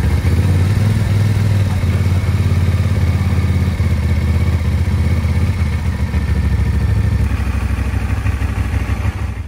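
1956 Triumph T110's 650 cc parallel-twin engine running loud and steady just after being started, easing off a little toward the end.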